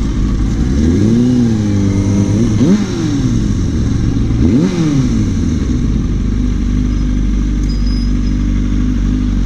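Kawasaki ZX-6R 636 inline-four sport-bike engine blipped up and down three times while rolling slowly, then idling steadily for the second half.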